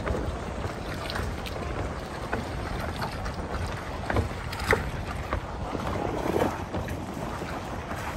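Wind buffeting the microphone, with scattered footsteps knocking on a plastic floating dock.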